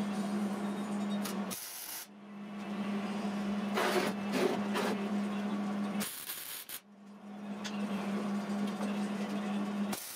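MIG welder laying tack welds on steel square tubing: a steady buzzing crackle of the arc in runs of a few seconds, stopping briefly between welds twice.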